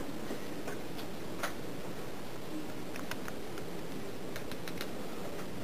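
Scattered light clicks and ticks of a screwdriver against the steel gears of an AndyMark Toughbox gearbox as grease is spread onto the gear teeth, irregular and a few a second at most.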